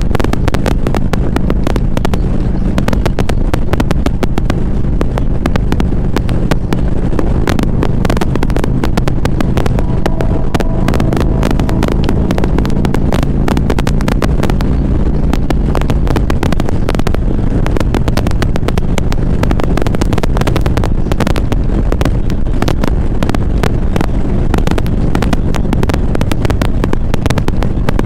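Motorcycle engine running steadily while riding in traffic, with a dense crackling texture through it. Its engine note shifts about halfway through.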